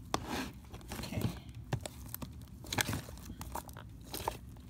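Sticky homemade fluffy slime (glue, shaving cream and lotion) squished and kneaded by hand in a bowl, giving irregular clicks and crackles.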